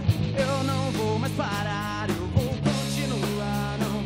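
A rock band playing live: electric guitars, electric bass and drum kit.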